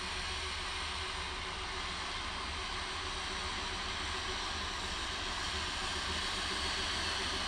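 Fry's Sentinel steam locomotive No 7492 running slowly toward the listener: a steady hiss of escaping steam over a low, even rumble, growing slightly louder as it nears, with no separate exhaust beats.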